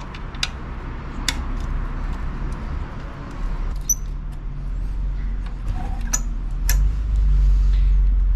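Sharp metallic clicks and clinks of a T-handle key turning the screw of a motorcycle exhaust clamp, loosening it. A low rumble builds underneath in the second half and is loudest near the end.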